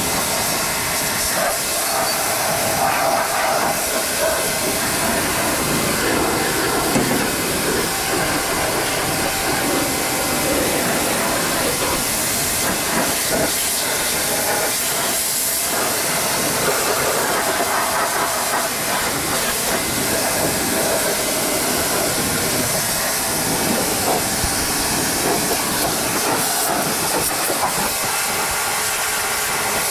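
Pressure-washer jet spraying water against a tractor's seat and sheet-metal bodywork: a steady, loud hiss.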